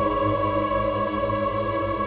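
Film-score music slowed down about eightfold, heard as a steady chord of held tones with no beat.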